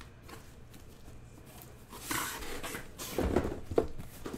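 Cardboard shipping case and the hobby boxes inside being handled: a scraping rustle of cardboard about two seconds in, then a few dull knocks and bumps as the boxes are shifted.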